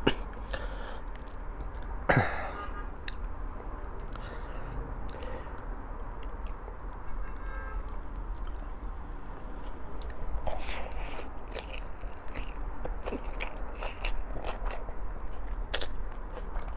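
A person chewing and biting a meal of rice, corned beef, fried eggplant and eggs close to the microphone, with many short wet clicks and smacks. A louder mouth sound comes about two seconds in.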